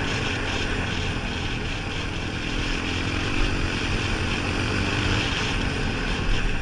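Engine of an off-road bike or quad running steadily at speed, heard from a camera mounted on the machine, with heavy wind rush over the microphone.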